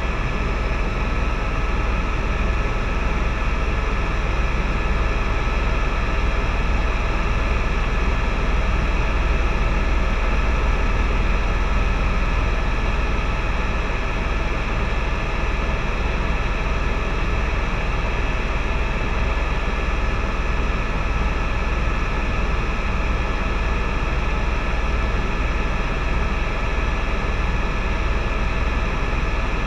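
Helicopter cabin noise in steady cruise: a low rotor rumble under a turbine whine made of several steady high tones, unchanging throughout.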